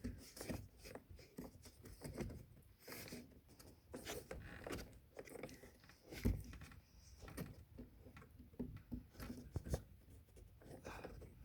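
Irregular small clicks and knocks of hands working at plastic wiring connectors, pressing at their release tabs to unplug them, with one louder knock a little past the middle.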